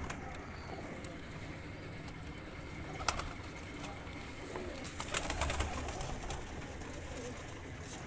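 Domestic pigeons cooing in a loft, with a couple of sharp clicks about three and five seconds in.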